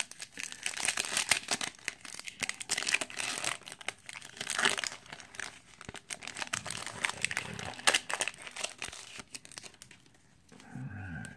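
Foil wrapper of a baseball card pack being torn open and crinkled in the hands, a dense crackling that dies down near the end as the cards are slid out.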